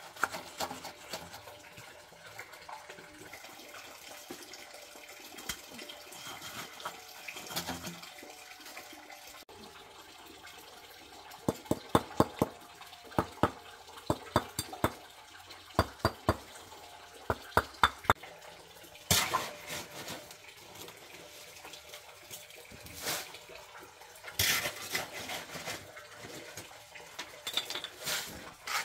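Water splashing and trickling, then a run of sharp knocks about two a second in the middle, followed by scattered louder knocks and scraping.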